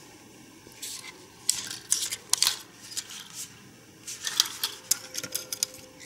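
Hands handling a Parrot Anafi drone and its accessories: an irregular run of small plastic clicks and rustles, starting about a second in.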